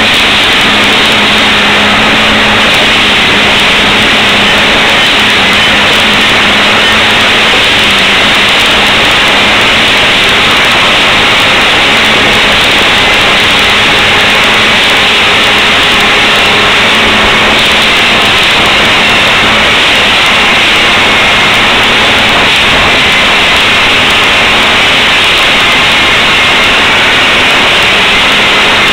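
Railroad tamping machine running loud and steady at work on the track: an unmanned drone tamper's engine and tamping gear make one constant, dense din with a low steady hum underneath.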